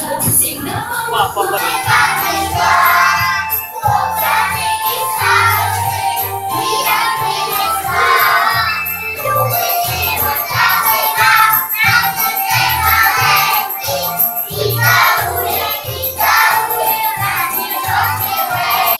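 A children's New Year song played over loudspeakers, with singing over a steady, regular beat. It cuts off suddenly at the very end.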